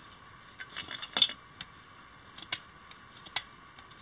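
A knife blade shaving a wooden tent stake to a point: irregular short, sharp scraping cuts, the loudest about a second in.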